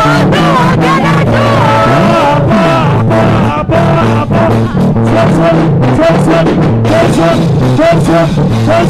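Loud live gospel band music: steady drum beats under a repeating bass line, with a sliding melodic lead line on top.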